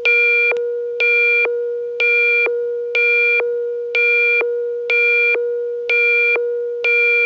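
Electronic alert tone of a mock Emergency Alert System broadcast: a steady low tone with a higher, buzzy tone pulsing on for about half a second roughly once a second, eight times.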